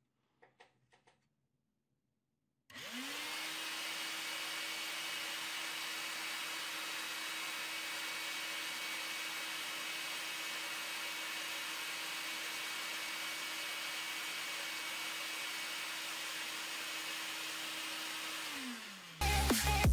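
Cordless vacuum cleaner motor, running on a replacement Li-ion battery pack, spins up about three seconds in. It runs steadily with a whine and a rush of air, then winds down near the end.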